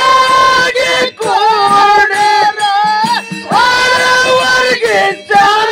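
A man singing a Kannada dollina pada folk song solo. He holds long high notes that slide and bend in pitch, in phrases broken by short breaths.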